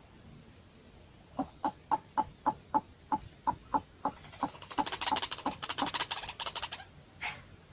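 A fowl clucking: a run of about a dozen short, sharp clucks, a few a second. It then breaks into a faster, denser string of rapid calls.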